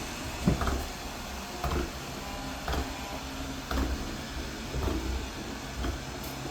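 Robot vacuum running: a steady motor hum with a short bump about once a second.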